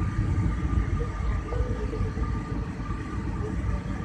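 Jet airliner cabin noise during descent: the engines and airflow make a steady low rumble, with faint steady tones above it, heard from inside the cabin.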